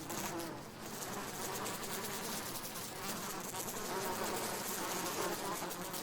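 Flies buzzing, several at once, in a steady continuous drone with wavering pitch.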